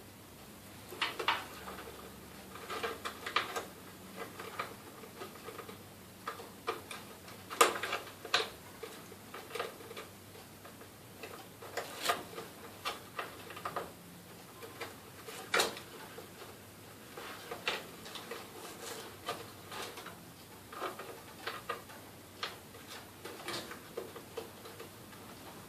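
Irregular clicks, taps and light knocks of power supply cables and plastic connectors being handled and plugged in inside a desktop computer case, with a few sharper clicks standing out.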